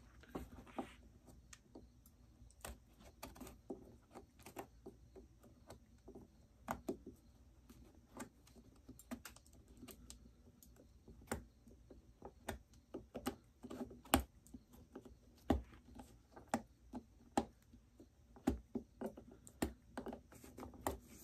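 Irregular light clicks and ticks of a small metal hand tool picking and prying old wooden pegs out of a cowboy boot's leather sole.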